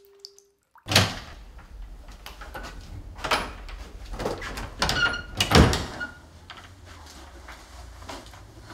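A panelled door being handled: a sudden loud knock about a second in, then several clunks and rattles of the door and its handle, the loudest about five and a half seconds in, over a low steady rumble.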